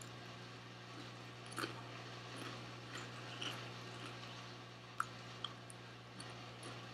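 Faint chewing and crunching of ridged potato chips, with a few short, sharp crackles, the sharpest about five seconds in, over a steady low hum.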